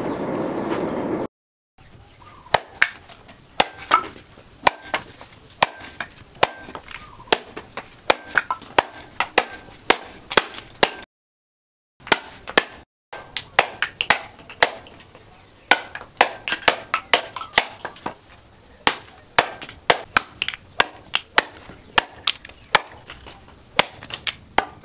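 Handmade cleaver, forged from a disc-plough blade, chopping a green bamboo pole on a wooden block: many sharp chops at an uneven pace, about two a second, with a short break about halfway through.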